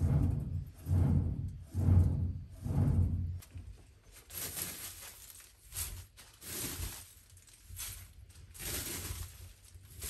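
A clay-pot bellows is pumped by hand into a charcoal iron-smelting furnace, giving low puffs of air about once a second. The pumping stops about three and a half seconds in, and charcoal is then scooped and handled with crunching, clinking rattles.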